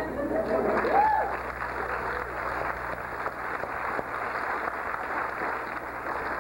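Audience applauding, a steady crackle of many hands clapping, with a brief voice about a second in.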